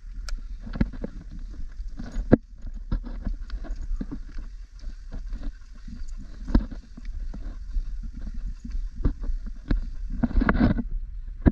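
Irregular knocks and clicks of camera handling and footsteps on a dirt hiking path, over a steady low rumble of wind on the microphone. A louder burst of noise comes near the end.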